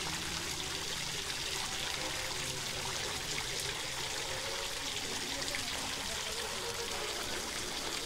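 Small garden fountain's jets splashing and trickling into its basin, a steady water sound.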